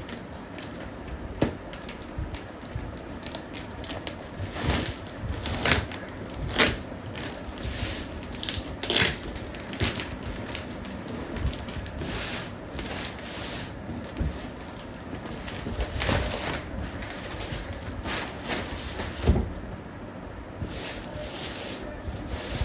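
A parcel being unwrapped by hand: irregular crinkling and rustling of the packaging, with scattered sharp knocks as it is handled.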